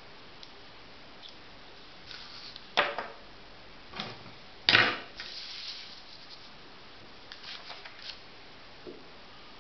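Paper rustling and handling of small plastic parts on a table, with three sharp knocks close together, the loudest about halfway through, then a few light ticks near the end.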